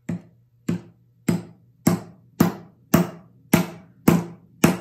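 Steel claw hammer driving a nail through a wooden wheel into a small pine toy kit: a steady run of about nine even blows, a little under two a second.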